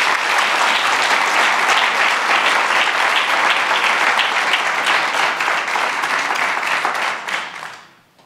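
Audience applauding steadily, then dying away shortly before the end.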